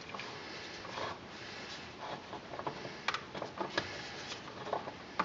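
Scattered light clicks and knocks of hands working the old transaxle oil filter free and handling it, thickest in the second half, over a faint steady hiss.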